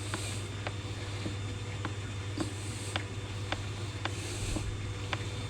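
Small four-stroke gas generator being primed by hand, with light clicks about twice a second and a few soft hissy squishes over a steady low hum.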